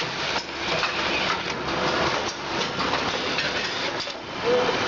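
Packaging machine running, with irregular clicks and rattling as granular product is fed through. The operators find the feed too slow.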